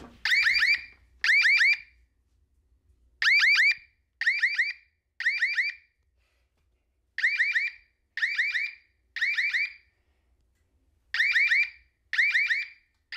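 Ademco/Honeywell Wave 2 siren sounding in fire mode: a temporal-three pattern of three short warbling beeps, then a pause of about a second and a half, repeating. The alarm panel has put the siren into fire alarm mode for no reason the owner knows.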